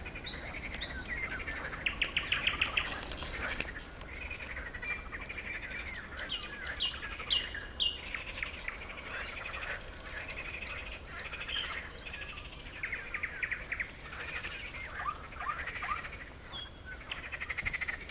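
Several wild songbirds chirping and singing at once, short calls overlapping one another, with a fast trill about two seconds in.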